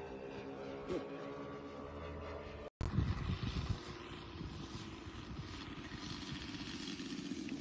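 A model F7F Tigercat's twin Saito FG-33R3 radial engines drone steadily as it flies at a distance. About three seconds in the sound breaks off for an instant, and then a rough gusty rumble of wind on the microphone covers a lower, steadier engine hum.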